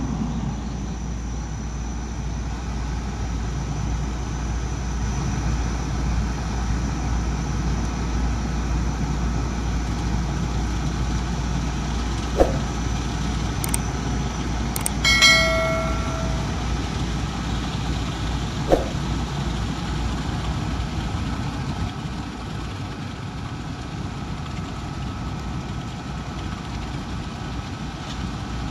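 Heavy construction machinery's diesel engine running steadily with a low rumble. About halfway there is a brief ringing tone, and a few sharp clicks are scattered around it.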